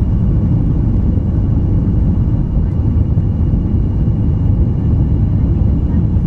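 Cabin noise of a Boeing 737 climbing after takeoff: a steady low rumble of the jet engines and airflow, with a faint steady high tone over it.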